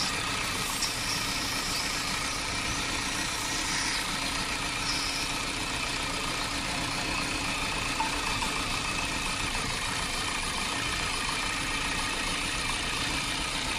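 Toyota Premio's four-cylinder petrol engine idling steadily with a slight misfire, which the mechanic traces to the first cylinder.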